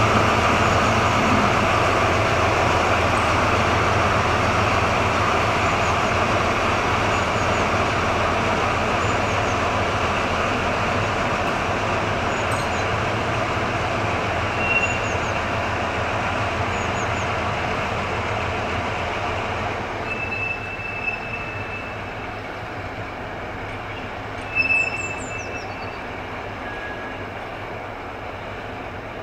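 DR class 118 diesel-hydraulic locomotive with two engines, running under power as it shunts a train of timber wagons away, its engine sound fading steadily as it recedes. The wheels squeal briefly on the curve about halfway through, again for a second or so near two-thirds, and once more near the end.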